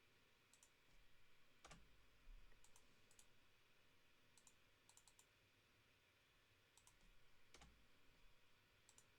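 Faint computer mouse clicks, many in quick pairs, scattered every second or so over near silence.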